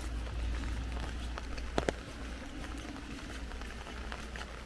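Rain pattering on an umbrella canopy as a dense stream of small drop taps. There are two louder sharp taps in quick succession about two seconds in.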